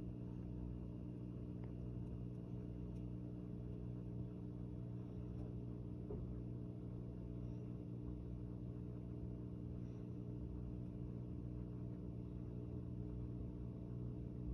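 A small motor running with a steady low hum of several held tones.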